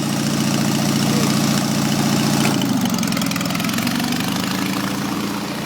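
Ride-on lawnmower engine running at idle; its note changes about two and a half seconds in and then holds steady.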